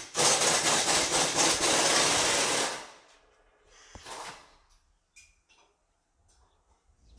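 A pneumatic shop tool running loudly for nearly three seconds, a rushing noise with a fast rattle in it. A shorter, weaker burst follows about four seconds in, then a few light clicks.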